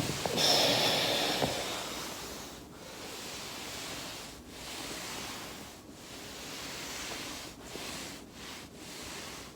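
A body rolling back and forth on a foam roller: a swishing rub that swells and fades about every second and a half, loudest in the first second or so.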